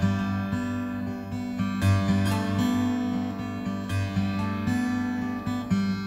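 Background music: a strummed acoustic guitar playing steady chords.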